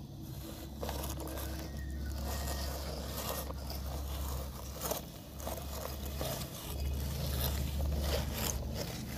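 A plastic toy crocodile scraping and crunching across sand in irregular bursts, over a low, steady rumble that drops out briefly a little past the middle.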